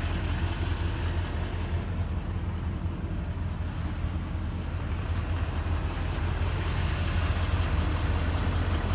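A 2011 GMC Sierra 2500HD's Duramax 6.6-litre V8 turbo-diesel idling steadily, a low, even hum.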